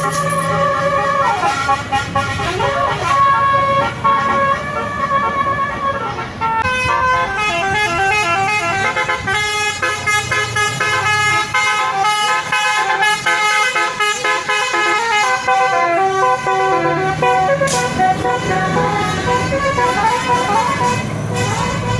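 Bus 'telolet basuri' musical horn playing a melody of several pitched notes over the bus's low engine hum. The notes are held at first; about six seconds in the horn breaks into a fast run of rapidly changing notes.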